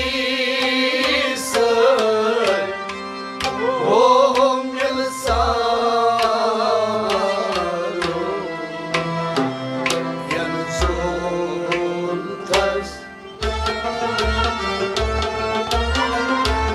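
Kashmiri Sufi kalam played live: a male voice sings over harmonium and a plucked rabab, with steady drum strokes throughout. The singing falls away after about five seconds while the instruments and drum carry on, and there is a brief dip in the sound about 13 seconds in.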